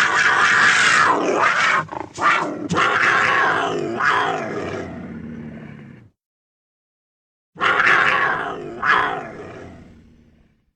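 Sabre-toothed cat (Smilodon) roar sound effect: a long roar of about six seconds in several surges, then after a pause a shorter two-part roar that fades away.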